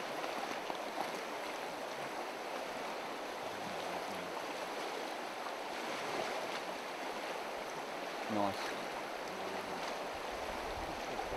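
Shallow river running over a gravel riffle: a steady rush of flowing water.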